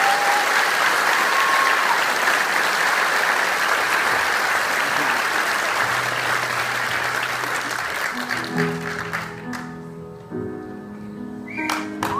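Audience applauding and cheering, dying away about nine seconds in. Slow, sustained keyboard notes begin underneath it, a low note first and then a soft chord.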